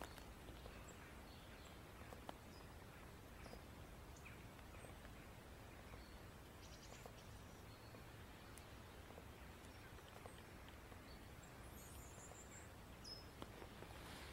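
Near silence: faint woodland ambience, with a few faint, high bird chirps near the end.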